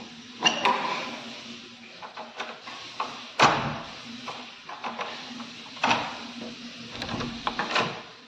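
Wooden door with a chrome lever handle being worked: a few sharp clicks and knocks of the latch and handle, the loudest with a dull thud about three and a half seconds in, with handling rustle between them, over a steady low hum.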